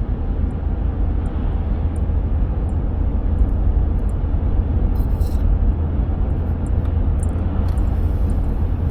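Car driving along a road, a steady low rumble of road and engine noise.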